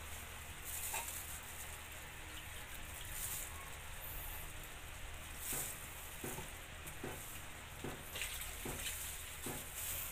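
Pork belly braising in a soy sauce and oyster sauce mixture in a stainless steel wok: the liquid sizzles and bubbles steadily, with a few small pops scattered through.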